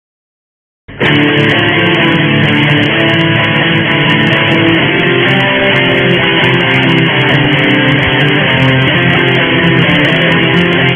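Silence for about a second, then loud strummed guitar music that plays on steadily.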